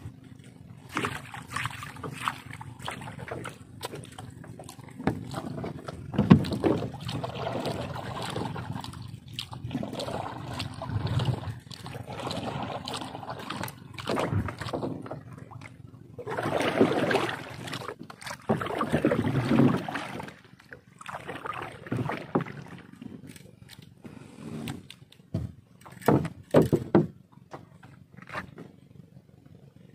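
Water sloshing and splashing beside a small wooden boat as it is paddled, coming in uneven surges a few seconds apart.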